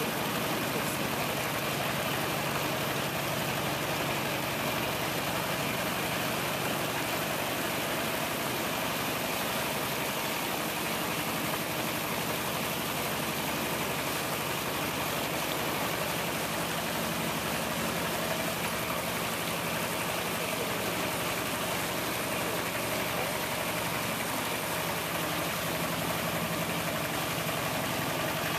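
A vehicle engine running steadily while the vehicle moves slowly through floodwater, under a continuous wash of noise.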